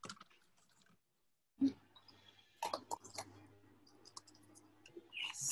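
Light clicks and taps of a rubber stamp and ink pad being handled on a tabletop, with one soft thump about a second and a half in and a rustling rub of a hand on paper near the end.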